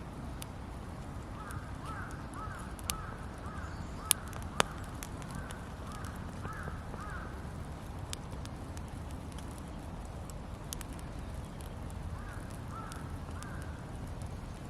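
Wood campfire burning with a few sharp crackling pops, while a bird calls in the background in short runs of quick notes, three times.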